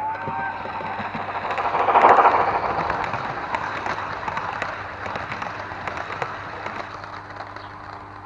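Garden-scale model train running past at close range: wheels rumbling and clicking on the rails, loudest about two seconds in as the locomotive passes, then fading as the coaches roll by. A held, horn-like note trails off in the first half-second.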